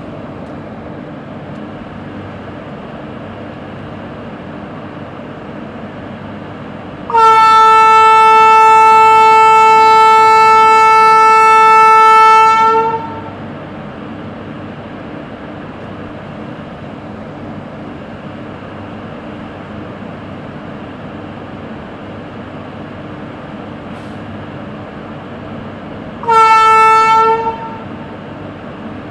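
WAP1 electric locomotive's horn sounding one long blast of about five seconds, then a second short blast near the end. A steady hum from the idling locomotive runs underneath.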